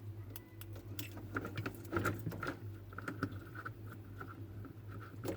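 Light clicks and taps of multimeter test probes being handled and pressed against the defrost heater's leads, over a steady low hum.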